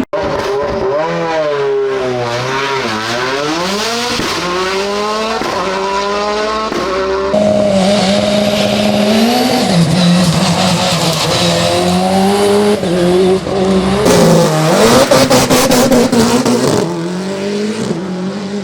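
Race car engine at full throttle, its pitch climbing and dropping again and again as it shifts gears and brakes for corners. Between about 14 and 17 seconds in there is a run of sharp cracks.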